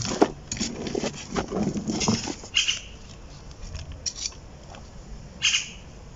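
Hand trowel scooping and packing potting soil into a pot: gritty scraping and crunching of soil and metal, dense for the first couple of seconds, then a few separate scrapes.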